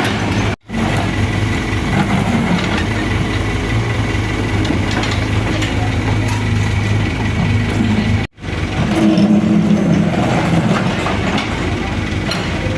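Excavator's diesel engine running steadily under work, with faint clanking of machinery. The sound cuts out for a split second twice.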